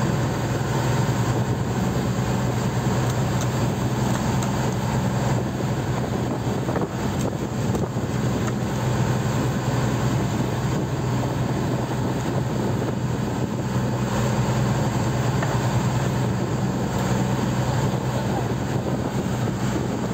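The boat's engine running steadily, a low, even hum that holds the same pitch throughout.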